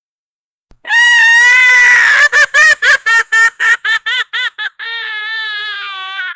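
A woman crying hysterically. After a second of silence she gives a long, high wail, then a run of short gasping sobs, about three a second. It ends in a quieter drawn-out wail that sinks in pitch.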